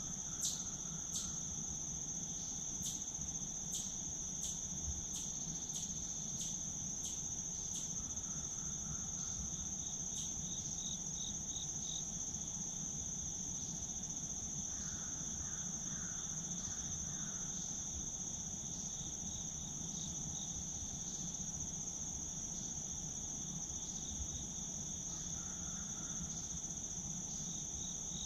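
Steady high-pitched chorus of insects, crickets or similar, with a trilling second voice that comes and goes. A regular ticking of about one and a half beats a second is plainest in the first several seconds, over a faint low hum.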